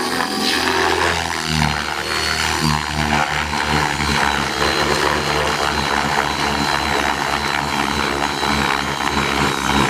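Align T-Rex 600E electric RC helicopter in flight: a fast rotor chop under a steady high motor whine, the rotor note shifting up and down in the first couple of seconds as it manoeuvres.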